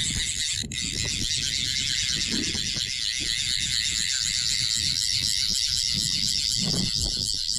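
Abel fly reel buzzing steadily as a running bonefish pulls line off it, with a low rumble underneath. The reel's drag was damaged in the cargo hold, so the reel runs jerky and sounds broken.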